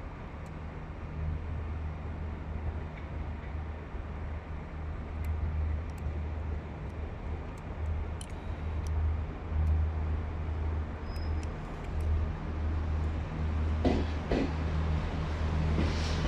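A train approaching: a steady low engine drone that grows louder, with a few sharp knocks near the end.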